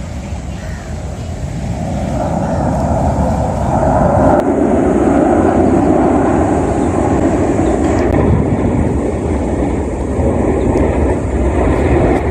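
Jet aircraft flying past at an air display: a loud jet roar that builds over the first few seconds and then holds steady.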